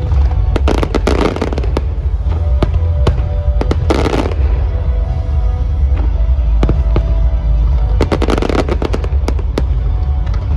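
Fireworks display: aerial shells and ground effects going off in rapid volleys of sharp bangs and crackle, densest about a second in, near four seconds and near eight and a half seconds, over a steady low rumble. Music plays beneath.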